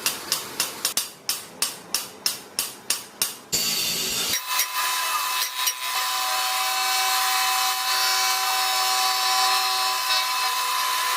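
A hand-tool or sawing action in metalworking: quick, evenly repeated strokes, about three or four a second, stop after about three and a half seconds. A steady machine sound with a hiss and a constant tone follows and runs on.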